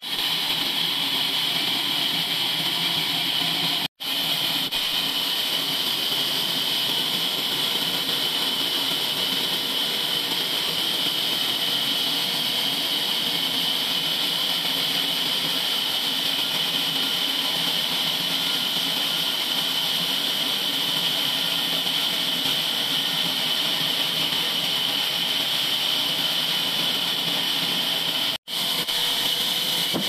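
Large band sawmill running with its blade cutting lengthwise through a log on the carriage: a steady, loud hissing whir.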